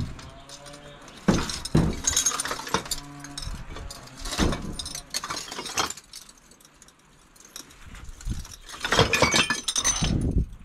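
Empty glass bottles clinking and clattering against each other in a bottle bank as an electric scooter is dragged out over them, in several bursts, the loudest near the end as the deck comes free.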